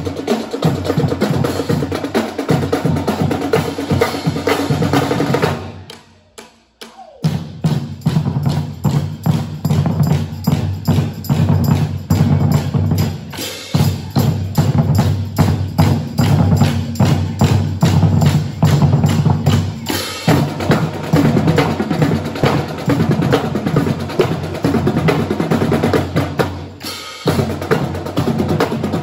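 Marching drumline playing a fast cadence: marching bass drums with snare and tenor drums. The whole line stops together about six seconds in, rests for about a second, then comes back in, and breaks off briefly once more near the end.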